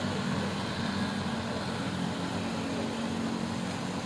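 Diesel engines of a truck-mounted concrete pump and a ready-mix concrete truck running steadily as concrete is fed to the pump, a constant low engine drone.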